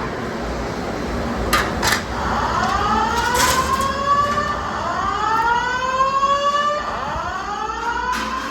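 Simplex TrueAlert fire alarm speakers sounding a whoop tone: a rising sweep of pitch that repeats about every two and a half seconds, several sweeps overlapping, starting about two seconds in. A few sharp clicks sound before and between them.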